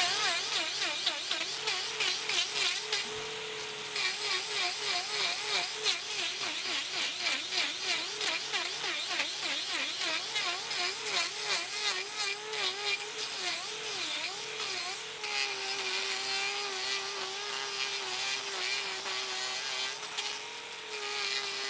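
Angle grinder with a hoof-trimming disc grinding horn off a bull's hoof. Its whine dips and wavers again and again as the disc bites into the hoof, then runs steadier for the last several seconds.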